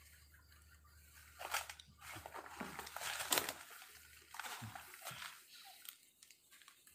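Crunching and rustling of dry leaves and undergrowth in several irregular noisy bursts, loudest about halfway through and dying away near the end.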